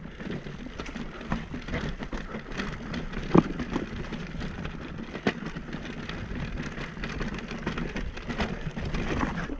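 Mountain bike rattling down a trail of loose stone slabs: a steady clatter of tyres, chain and frame on rock, with two sharper knocks about three and a half and five seconds in.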